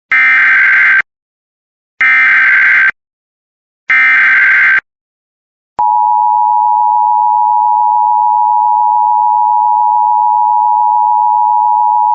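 Emergency Alert System tones: three bursts of the SAME digital header, each about a second long and two seconds apart, then about six seconds in the steady two-tone attention signal begins and holds.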